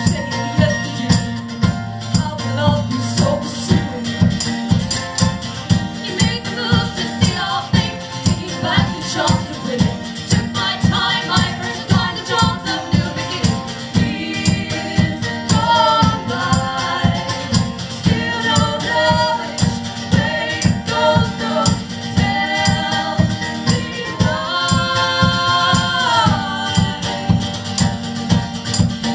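Live band music: a steady strummed and shaken rhythm with tambourine-like jingles under sung vocal lines, including a long held note near the end.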